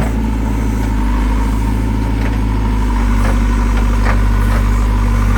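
JCB 3CX backhoe loader's diesel engine running steadily, with a few short metallic clanks from the machine.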